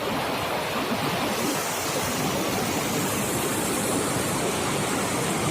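Rushing whitewater of a river rapid: a steady, even roar of water with no breaks.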